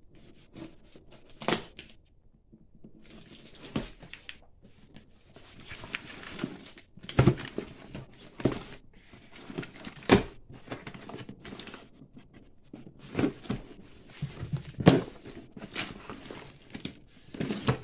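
A box cutter slicing and tearing through packing tape on a cardboard box, with cardboard scraping and crinkling in irregular strokes and several sharp knocks as the box is handled.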